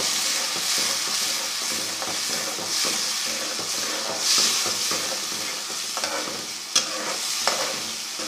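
Curry masala of onion, tomato paste and ground spices sizzling as it fries in hot oil, stirred and scraped around the pan. The sizzle swells and fades, and a couple of sharp clicks come near the end.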